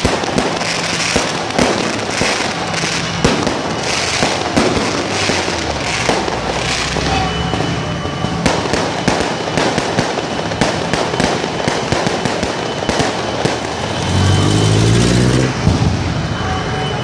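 Aerial fireworks bursting overhead: a dense, continuous crackle of many small pops, with sharper reports now and then. Near the end a low pitched drone sounds for about a second and a half, slightly rising.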